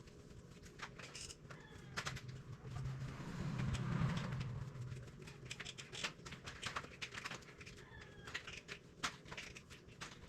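Faint bird calls, with scattered soft clicks and a brief low swell of sound in the middle.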